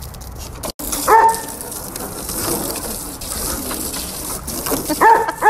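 Water hissing from a garden hose spray, with a dog barking once about a second in and twice in quick succession near the end.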